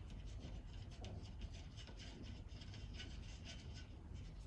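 Faint scratchy rubbing with small irregular ticks as a screwdriver turns an M6 machine screw, through a washer, into the brass insert of a rubber well nut.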